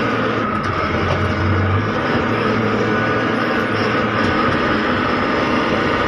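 Diesel engine of a JCB-type earthmoving machine running steadily under load, with a low hum that eases off about two seconds in.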